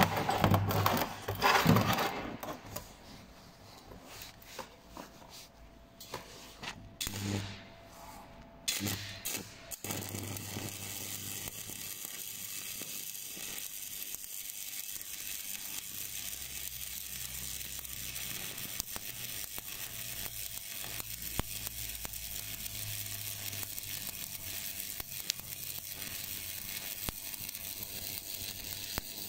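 Stick-welding (MMA) arc from a stainless-steel electrode at about 100 amps on stainless tube, catching about ten seconds in and then crackling and hissing steadily. Glove and workpiece handling, with a few short scrapes, comes before it.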